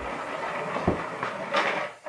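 Compressed air hissing out of a pop-bottle air-pressure car's nozzle as it rolls across a wooden floor, with a knock about a second in. The hiss swells briefly, then cuts off just before the end as the car runs into a pair of rubber clogs.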